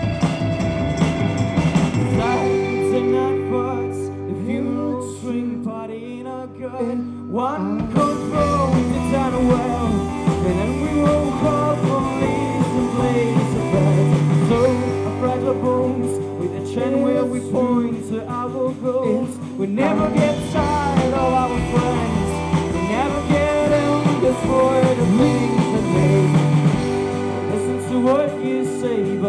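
Live rock band playing with amplified electric guitars, bass, keyboard and drums, and a male lead singer. The band thins out a couple of seconds in and comes back in full about eight seconds in.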